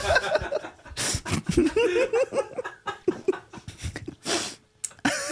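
Men laughing helplessly, in broken giggles and breathy wheezes, with sharp gasps of breath between fits.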